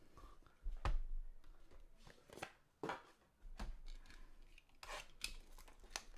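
Handling noises from a cardboard trading-card box: a series of short taps, knocks and scrapes, the loudest a thump about a second in.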